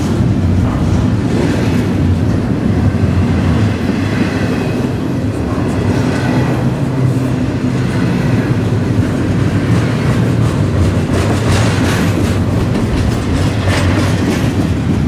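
Double-stack intermodal container train of well cars rolling past close by. It makes a steady heavy rumble with scattered wheel clicks and clatter.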